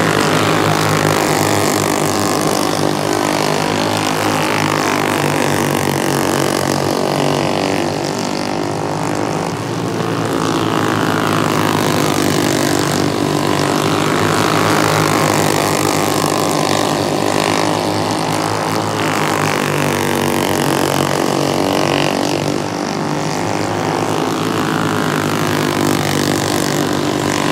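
Several flathead (Briggs & Stratton side-valve) go-kart engines racing round a dirt oval. Their overlapping pitches rise and fall in repeating swells as the karts go round lap after lap.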